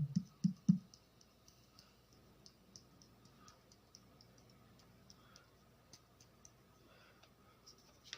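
Faint, scattered sharp clicks and ticks, with three short low thumps in the first second.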